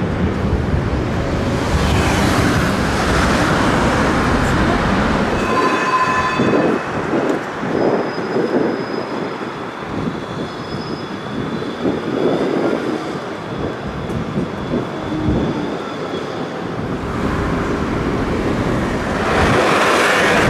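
Electric trams running on street rails amid road traffic: a steady rumble of wheels and vehicles with a few thin high wheel squeals in the middle, growing louder near the end as another tram and traffic come close.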